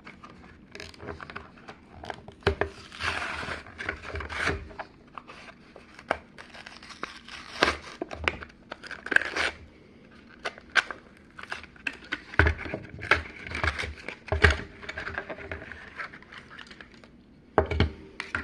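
A Hot Wheels blister pack being torn open by hand: cardboard backing tearing and the plastic blister crinkling, with many sharp clicks and snaps and stretches of rustling throughout.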